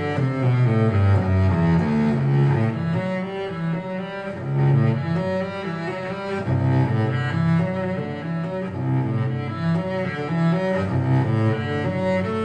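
Instrumental music with low bowed strings, cello and double bass, playing a moving line of low notes, reproduced through a bi-amped McIntosh XRT30 floorstanding speaker system and picked up by microphone in the room.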